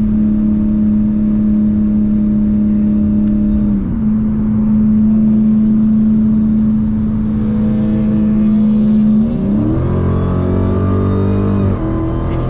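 Dodge Challenger Hellcat's supercharged 6.2-litre V8 running at steady revs, with a brief dip about four seconds in. After about nine seconds the pitch drops, then climbs again.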